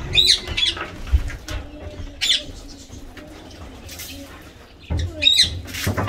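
Indian ringneck parakeet splashing and flapping its wings while bathing in a water bowl, in short bursts near the start, once in the middle and again near the end, with short high squeaks from the parakeets.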